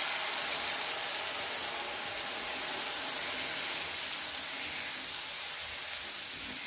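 Hot oil tempering in a pan hissing and sizzling as cold buttermilk and gram-flour batter is poured over it. The steady hiss slowly grows quieter.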